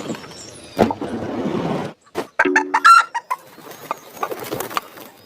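Chickens clucking and squawking, with a short, loud call about three seconds in.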